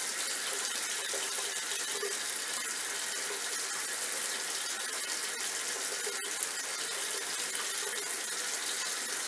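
Tap water running steadily into a sink, an even hiss with a couple of faint clicks.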